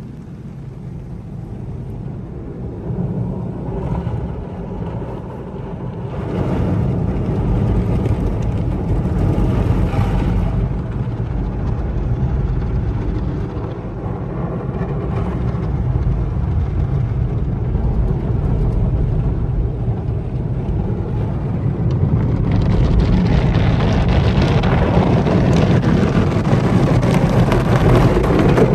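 Automatic car wash heard from inside the car: water and foam spraying and washing equipment working over the windshield and body, a steady low rushing noise. It grows louder about six seconds in and again near the end, when it also turns brighter.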